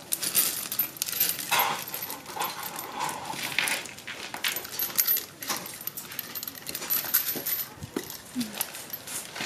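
Spent metal cartridge cases clinking and rattling against each other as hands rummage through a heap of them, in quick irregular jingles.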